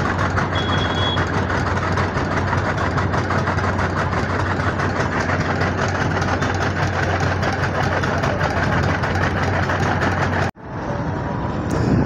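Heavy road-construction machinery engine running steadily with a deep hum, with one short high beep about a second in. Near the end the sound cuts off abruptly, leaving lighter road traffic.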